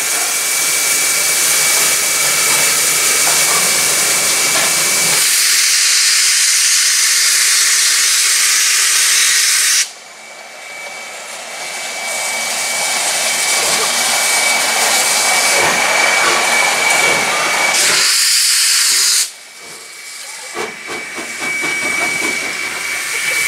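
Steam locomotive Energie 507 hissing loudly as it vents steam from the drain cocks around its cylinders, with a steady high whistling tone running through the hiss. The hiss cuts off sharply twice, about ten and nineteen seconds in, and each time picks up again within a second or two.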